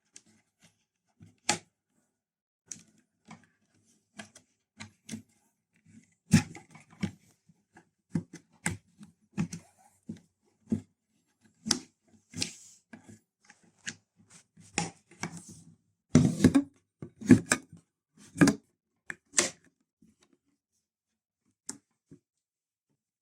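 Stanley 15.1 L portable cooler being handled: irregular clicks and knocks of its lid, latch and handle, with a flurry of louder knocks about two-thirds of the way through.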